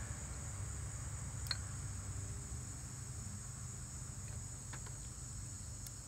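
Steady, faint high-pitched insect chirring, with a few soft clicks as a multimeter test probe is pressed onto the pins of an ignition coil connector.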